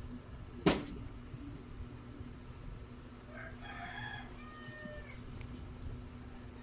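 A rooster crowing once in the background: a wavering call of about a second and a half, starting about three seconds in. A sharp click just under a second in is the loudest sound.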